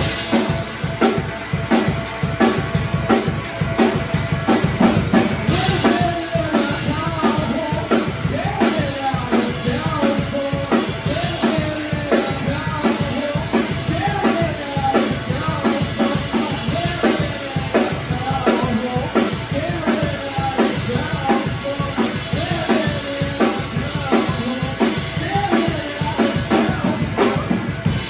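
A live band playing a song: the drum kit keeps a steady beat with bass drum and snare under a pitched melody line, loud and even throughout.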